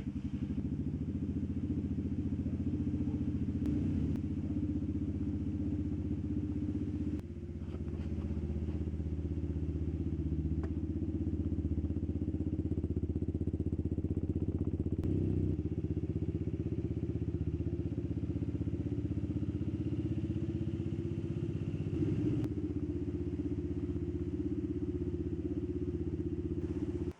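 Dafra Speed 150 motorcycle's single-cylinder four-stroke engine running steadily through a newly fitted aftermarket 'boca 8' exhaust.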